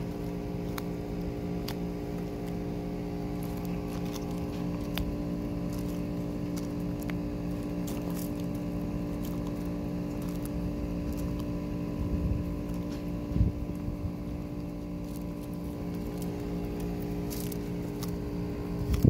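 A sulcata tortoise biting and chewing zucchini sticks, heard as scattered soft crunching clicks, over a steady mechanical hum from some machine running nearby.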